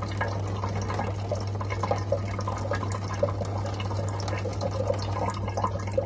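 Thin stream of water running from a kitchen tap and splattering into the sink, with a steady low hum underneath.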